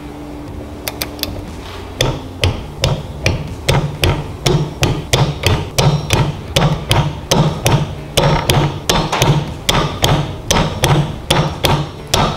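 A 1/4-inch ratcheting torque wrench clicking in quick, regular back-and-forth strokes, about two or three a second, as it runs down the connecting-rod cap bolts of a Predator 212 engine.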